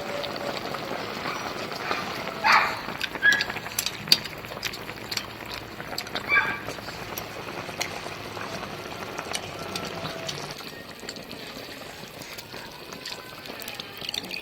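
Pig-offal hotpot broth simmering steadily, with scattered light clicks and a few short louder sounds of eating at the table.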